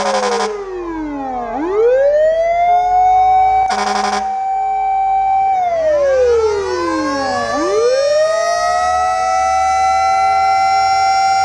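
Fire truck siren wailing in slow cycles: the pitch holds high, drops, and climbs back up twice. A short buzzy horn blast cuts off just after the start, and another sounds about four seconds in.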